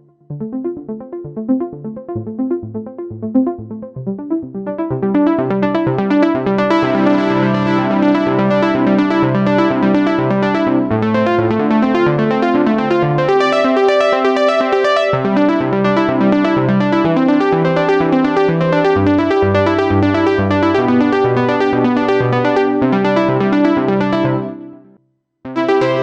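Roland J-6 chord synthesizer playing a factory preset as a repeating chord phrase. It is sparse at first and grows fuller and brighter about five seconds in. It cuts out briefly near the end before another sound starts.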